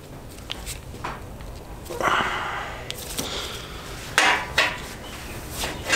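Gloved hands working a nylon-braided fuel hose into an AN hose-end fitting by hand: scattered rubbing and scraping noises with a few light clicks. The loudest rubs come about two seconds in and again about four seconds in.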